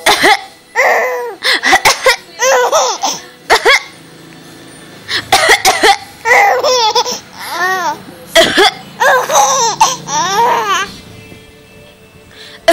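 Four-month-old baby laughing in repeated bursts of high, rising-and-falling giggles, with short sharp coughs between the bursts that set off the laughter, and two brief lulls.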